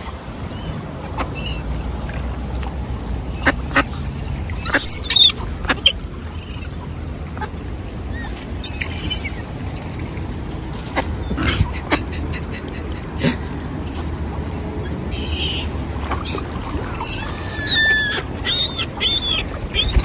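Birds at a feeding spot: many short, high-pitched chirps scattered throughout, with a few sharp taps and a steady low wind rumble underneath.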